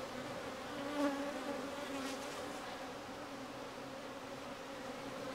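Honeybees buzzing steadily in a low, even hum over an open hive and a frame of brood.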